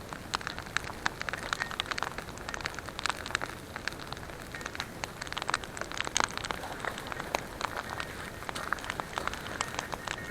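Wood campfire crackling, with many irregular sharp pops and snaps over a soft steady hiss.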